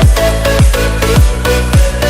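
Electronic dance background music with a steady kick-drum beat, about two strokes a second, over a sustained bass line and short melodic notes.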